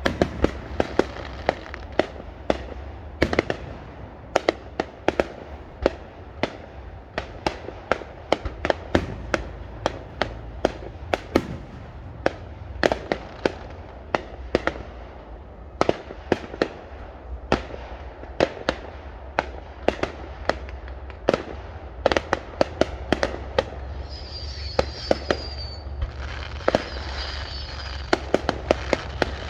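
Fireworks going off in an irregular, rapid string of sharp bangs, often several a second, with a steady low rumble underneath. From about 24 seconds in, a high crackling whistle joins the bangs.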